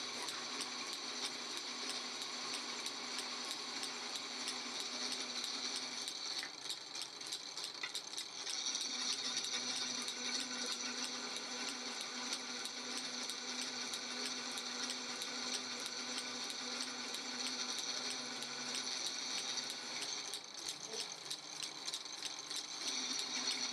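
Pillar drill boring a hole through a thick steel plate: the motor runs steadily while the bit cuts, with a fine rapid rattle of metal chips. The sound eases briefly twice, about six seconds in and near the end.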